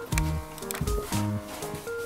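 Background music with bass notes and a steady beat.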